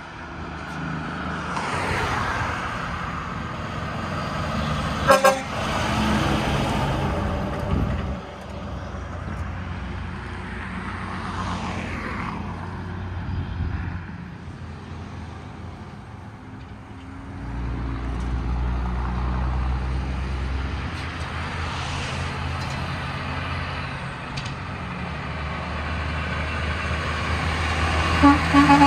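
Trucks and cars passing on a road, engines and tyres rising and falling as they go by. A short horn toot about five seconds in, and a quick series of short horn blasts starting near the end.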